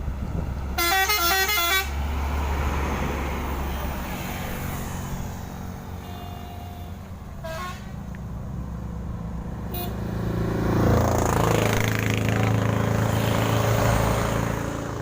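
Truck telolet horn playing a quick run of stepped notes about a second in, followed by a few shorter horn notes. Heavy vehicle engines run underneath, growing louder from about ten seconds in as a vehicle passes.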